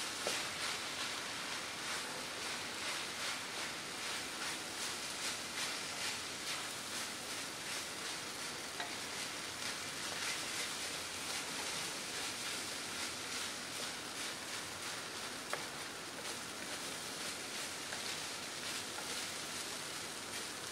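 Fried rice sizzling in a wok on high heat while a spatula stirs and scrapes it, a steady hiss with quick repeated scraping strokes.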